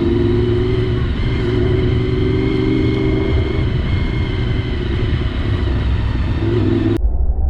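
Honda VFR750's V4 engine running steadily under wind rumble on the helmet microphone. Near the end the engine sound cuts off abruptly, leaving only a low wind rumble.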